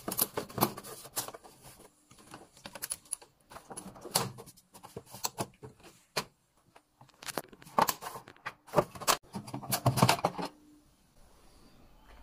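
Irregular plastic clicks, knocks and rattles as a washing machine's cabinet panel is opened and handled to reach the water level sensor. The clicks stop about ten and a half seconds in.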